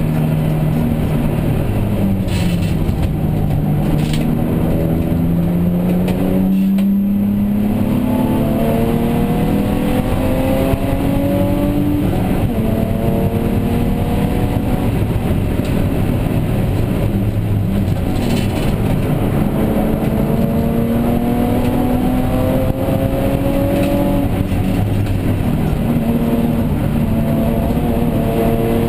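BMW E36 325i race car's inline-six engine heard from inside the cabin, pulling hard with its note climbing steadily and dropping back at each gear change, about every five to seven seconds.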